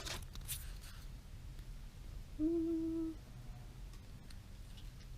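A person's short, steady closed-mouth 'mmm' hum while eating, about halfway through, after a couple of faint crackles near the start.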